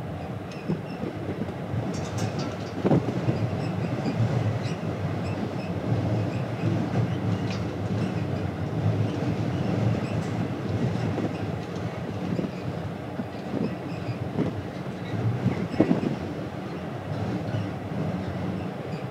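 Steady low rumble of a ferry under way, heard from on board, with a few sharp knocks or rattles: one about three seconds in and a louder one toward the end.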